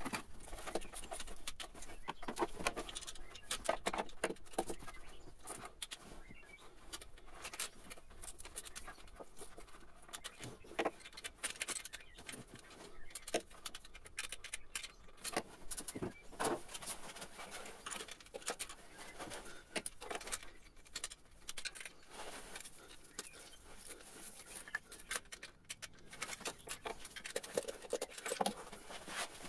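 Fast-forwarded workshop sounds of hand tools on the water pump bolts of a Renault D4F engine: quick, irregular metallic clicks and rattles from a ratchet and torque wrench, sped up.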